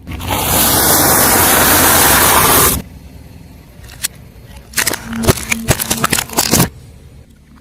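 Car tyre rolling over and crushing objects: a long, loud stretch of dense crunching noise, then about two seconds later a run of sharp cracks and crackles.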